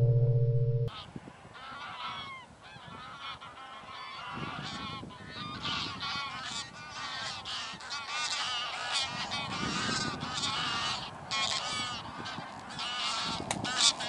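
A distorted guitar chord rings out and cuts off about a second in. Then a flock of geese calls in flight, many birds honking over one another, busier and louder as the flock comes closer.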